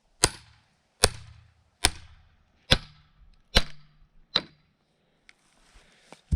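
Six sharp blows of a hand tool into a small, dry log being split lengthwise, evenly spaced about 0.8 s apart.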